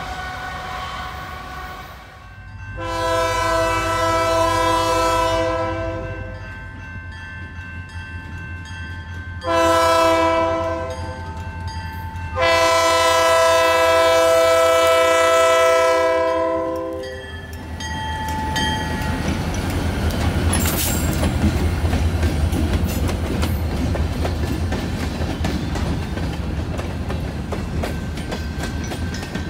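Canadian National diesel freight locomotive sounding its multi-tone air horn for a road grade crossing: a long blast, a short one, then a long one. Then the locomotive and freight cars pass with a steady low rumble and clickety-clack of wheels over the rail joints.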